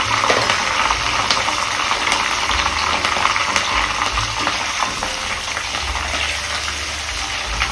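Tempering of garlic, curry leaves, dried red chillies and cumin seeds sizzling steadily in hot oil in a kadai, with scattered crackles and pops. A slotted spoon stirs it near the end.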